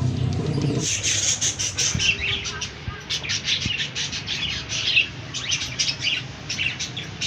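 Small birds chirping: a dense, continuous run of short high chirps. A low hum in the background stops abruptly about a second in.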